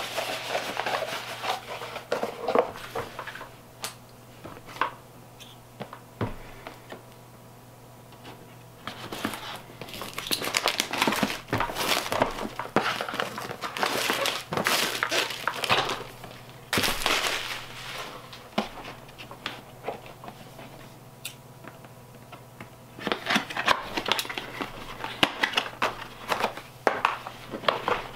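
Plastic shrink wrap and packaging crinkling and crackling as product boxes are unwrapped and opened by hand, with sharp clicks of cardboard being handled. It comes in three stretches separated by quieter pauses.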